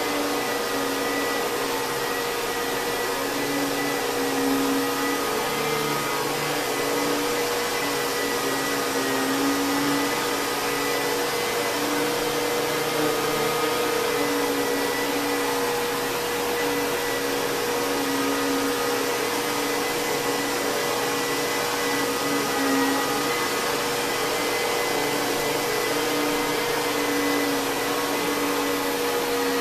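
Kenmore Progressive canister vacuum cleaner with a Lamb electric motor running steadily: an even rushing of air with a constant whine over it.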